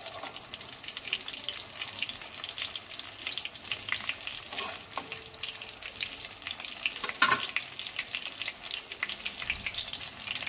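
Battered chicken leg pieces deep-frying in hot oil, with a steady sizzle and crackle. There is a sharper click about seven seconds in.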